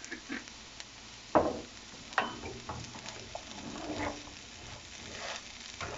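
Diced potatoes sizzling as they fry in a nonstick pan, stirred and scraped with a wooden spatula. Two sharp knocks stand out, about one and a half and two seconds in.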